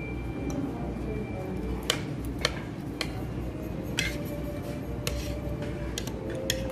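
Light clinks and taps of utensils against dishes at a dining table, about half a dozen scattered knocks, over a steady low background hum.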